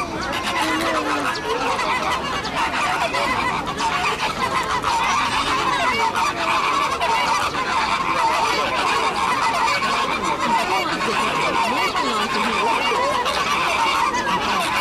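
A large flock of flamingos honking, many short calls overlapping into a continuous din.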